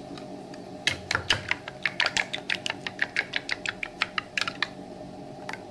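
Steel spoon clicking rapidly against a ceramic bowl while beating thick curd smooth, several taps a second, starting about a second in and stopping shortly before the end.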